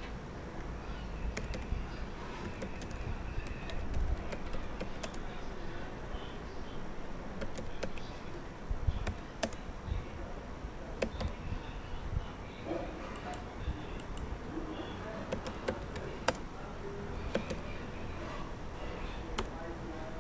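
Computer keyboard being typed on: irregular key clicks, in short runs and single presses, over a low steady room rumble.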